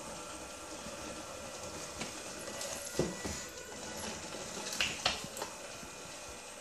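Homemade robot wet mop's small drive motors whirring steadily as it manoeuvres, with a sharp knock about three seconds in and two more about five seconds in.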